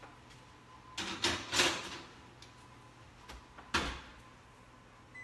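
Oven door opened and a skillet of cornbread batter slid in, a rattling stretch about a second in, then the oven door shut with one sharp knock near the end.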